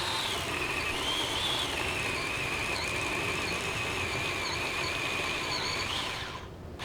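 Ryobi 18-volt battery chainsaw cutting wood: a steady high electric-motor whine with chain noise, its pitch sagging and then holding lower as the chain bites in. It winds down near the end.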